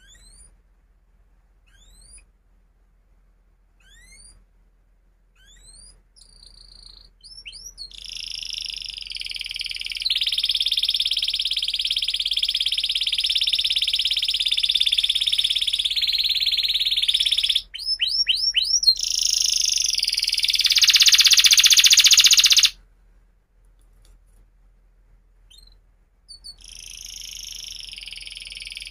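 Domestic canary singing. It gives a few short rising chirps spaced about two seconds apart, then breaks into a long, loud continuous song of rolls and trills, with a quick run of rising whistles in the middle. The song stops for a few seconds and starts again near the end.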